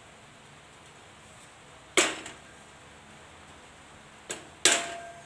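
Hammer striking a bicycle's steel chainring: two sharp metallic strikes, with a lighter tap just before the second, each ringing briefly. The blows are straightening a slight wobble in the chainring so it runs true and the chain stops falling off.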